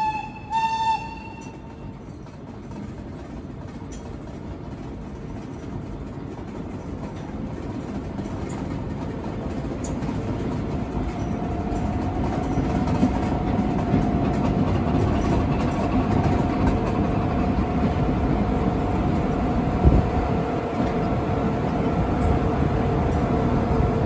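Passenger train rolling slowly along a station platform: a horn sounds a short toot at the start, then the rumble of wheels on track grows steadily louder, with a steady whine joining about halfway through.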